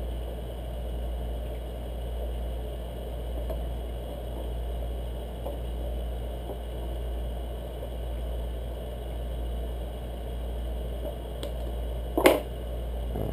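Steady low hum with faint handling clicks as a piston ring is spread with piston ring pliers and worked onto a piston. A single sharp knock near the end is the loudest sound.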